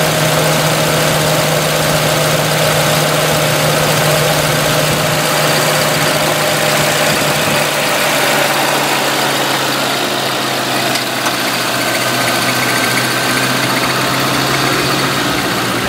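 Mercury Grand Marquis V8 idling steadily, heard from its open engine bay, with its hum settling slightly lower in pitch about halfway through. It is running with water mist from a DIY ultrasonic fog-injection setup drawn into its intake.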